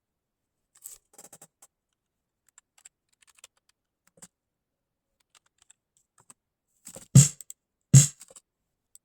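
Snare drum struck twice near the end, two sharp cracks less than a second apart with a short ring, after a few faint clicks.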